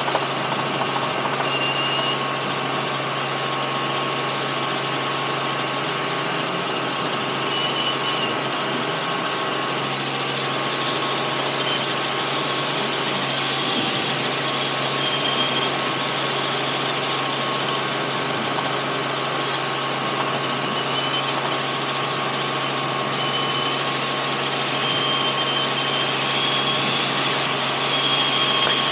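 Robinson R44 helicopter heard from inside the cabin in steady cruise flight: its six-cylinder Lycoming piston engine and rotors make an unbroken, even drone. Short high tones come and go over the drone now and then.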